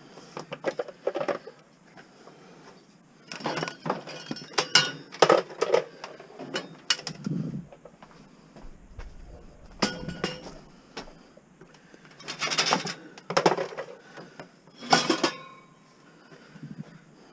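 Pieces of scrap metal clinking and clattering as they are handled and dropped, in irregular bursts of knocks with short pauses between.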